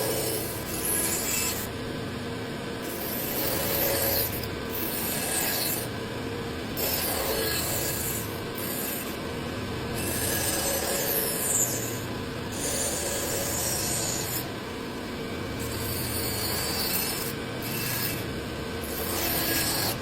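A hand tool rasping or scraping across wood in repeated strokes, each lasting a second or two, with brief pauses between them.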